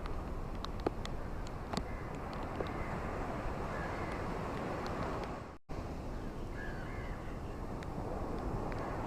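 Steady wash of ocean waves breaking on a beach, with a few faint bird calls and some small clicks early on. The sound cuts out for an instant a little past halfway.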